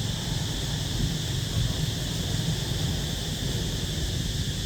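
Steady outdoor ambience: insects droning at a constant high pitch over a low, ragged rumble.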